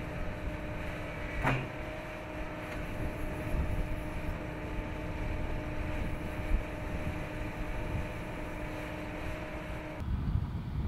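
Vermeer D100x140 S3 horizontal directional drill rig's diesel engine running steadily, a low drone with a few held tones, with a single sharp knock about a second and a half in. Near the end the drone drops away, leaving wind rumbling on the microphone.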